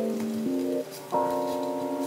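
Background music: sustained chords that change about half a second in and again just after a second in.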